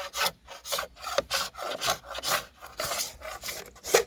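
A hand scraping knife drawn over old hanok timber in quick, rasping strokes, about two to three a second, stripping the weathered wood surface.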